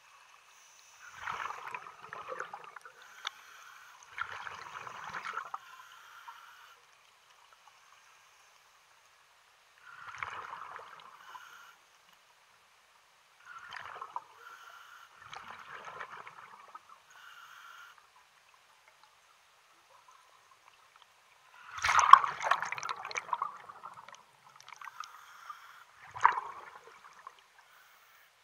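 Water splashing and trickling in short irregular bursts a few seconds apart, with the loudest splash near the end.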